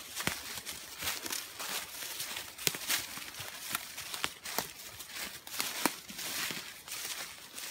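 Footsteps crunching through leaf litter and pushing through young maple shoots, with frequent sharp snaps and crackles of twigs at irregular intervals.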